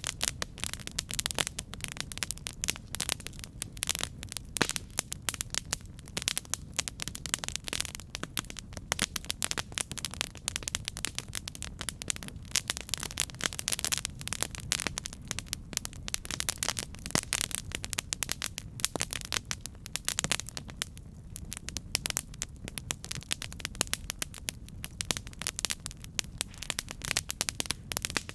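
Campfire burning, with many small, irregular crackles and pops of burning wood over a low steady rumble of the flames.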